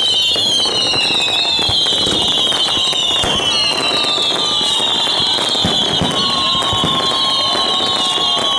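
Fireworks display: many whistling fireworks shrieking at once in overlapping falling whistles, over constant cracks and bangs of launches and bursting shells.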